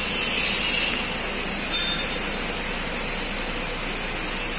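Steady background noise in a bus workshop, with a high hiss in the first second and a single metallic clink a little under two seconds in.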